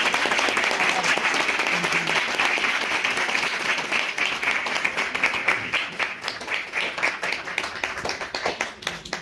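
Audience applauding: dense clapping that thins into scattered separate claps from about six seconds in and dies away near the end.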